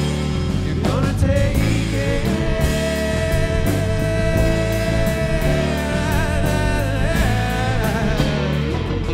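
Funk jam band playing live: a male vocal over electric guitar, saxophone and drums, with a long held note through the middle.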